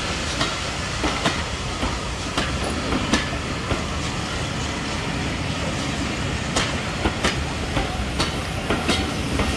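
Coaches of a steam-hauled passenger train rolling past close by: a steady rumble with the wheels clacking over rail joints at irregular intervals, some clacks in close pairs.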